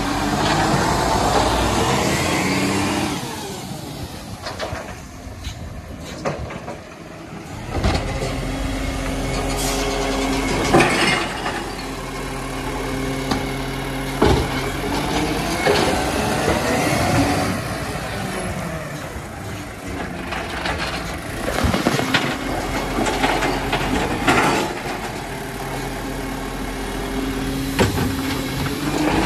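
Side-loading garbage truck running steadily, its engine rising and falling as the hydraulic arm grabs, lifts and tips wheelie bins into the body. Several sharp clunks come from the bins and the arm.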